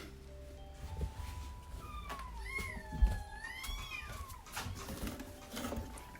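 About one-week-old kitten mewing: a few thin, high cries in the middle, the longest drawn out for over a second. Small clicks and a sharp knock about halfway through, from handling.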